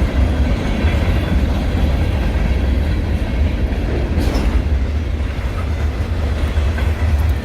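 Freight train cars rolling past, their wheels clattering steadily over the rails under a deep rumble, with a brief sharper clank about four seconds in.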